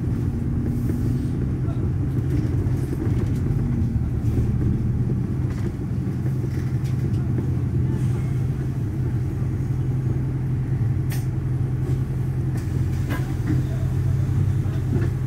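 Steady low rumble of a London double-decker bus's engine and running gear, heard from inside the upper deck as it drives along, with a few light clicks and rattles.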